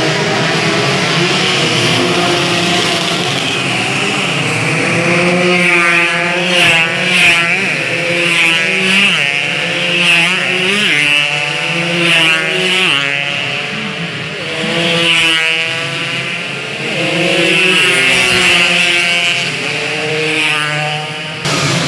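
Racing motorcycle engines revving and passing one after another, their pitch rising and falling repeatedly as they accelerate and back off through the corner.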